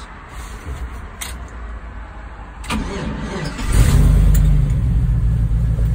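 Chevy LS V8 in a 1950 Ford F1 pickup being started: the starter cranks briefly about two and a half seconds in, the engine catches with a quick flare of revs and settles into a steady, loud idle.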